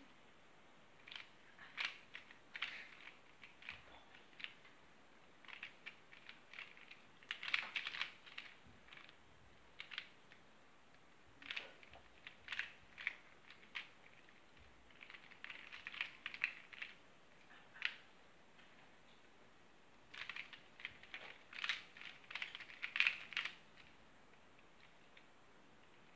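Plastic Square-1 puzzle clicking as its layers are twisted and flipped in quick bursts of turns, with short pauses of a second or so between the bursts.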